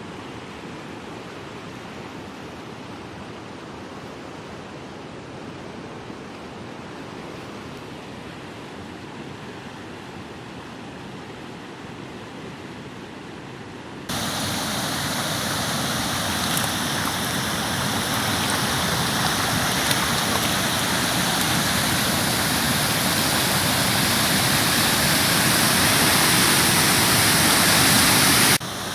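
Rushing floodwater and rain making a steady noise. About halfway through it jumps to a much louder, hissier rush.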